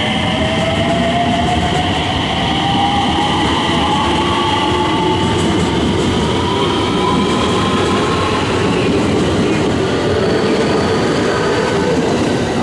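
Electric commuter train accelerating: its traction motors whine in several tones that rise in pitch over about eight seconds and then level off, over the steady rumble of the wheels on the rails.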